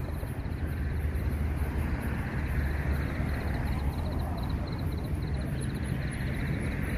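Night street ambience: a steady low rumble of car traffic, with a faint, rapid high-pitched ticking throughout.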